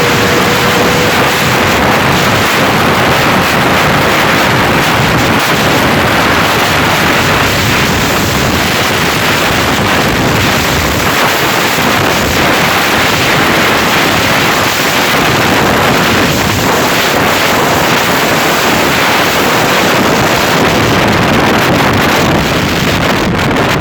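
Honda CBR600RR inline-four ridden at speed: heavy wind buffeting on the microphone over the engine. The engine note rises slowly in the first few seconds.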